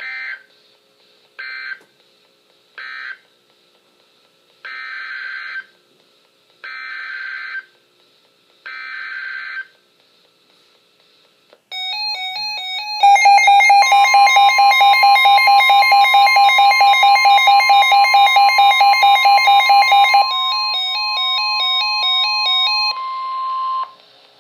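EAS/SAME data bursts on NOAA Weather Radio: three short end-of-message bursts about a second apart, then three longer header bursts of about a second each announcing the next warning. After that, a loud, rapidly pulsing electronic alert beep sets in, joined about a second later by the steady 1050 Hz weather-radio warning alarm tone, which runs for about ten seconds and stops shortly before the end.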